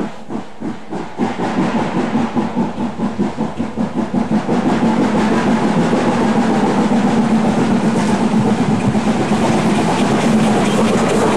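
Harz narrow-gauge 2-10-2 steam tank engine starting a train, its exhaust beats quickening as it accelerates. After about four seconds the beats merge into a steady loud rush of exhaust and running noise as it passes close by.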